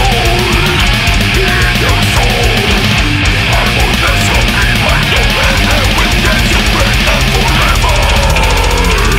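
Brutal death metal music, loud and dense, driven by fast, even drumming under low, heavy notes.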